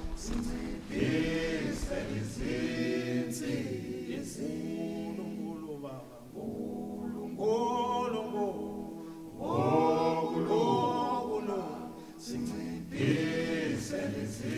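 Background music of a choir singing, with several voices holding and shifting pitch together in long sung phrases.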